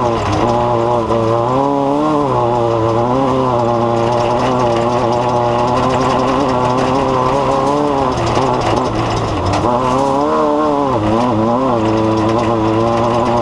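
Engine running continuously at a steady loudness, its pitch wavering up and down every second or so.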